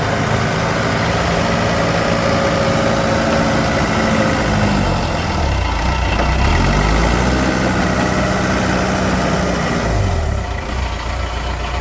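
1990 Case 450C tractor's Cummins diesel engine running steadily; about halfway through its speed drops and then climbs back, and it dips again near the end.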